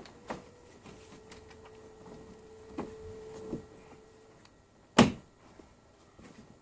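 Handling noises while working on a split-system air conditioner: scattered light clicks and knocks, with one much louder knock about five seconds in. A faint steady hum runs under them and stops a little past four seconds.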